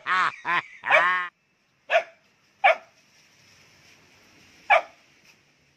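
A dog barking at a crab: a quick run of barks in the first second or so, then three single short barks about a second or two apart.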